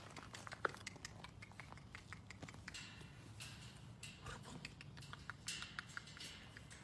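Rottweiler puppies pawing at a wire pen: faint, irregular clicking and scratching of claws on the metal mesh.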